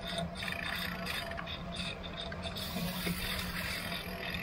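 Bicycle tyres hissing on wet asphalt as a group of bikes rides along, with a steady low hum underneath.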